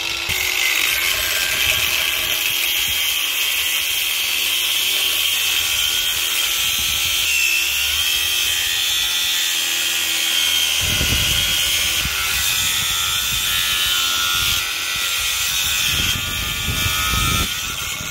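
Angle grinder with a cutting disc cutting through a metal support leg under a boat trailer: a loud, steady grinding screech. Deep knocks join in during the second half, and the level dips a little near the end.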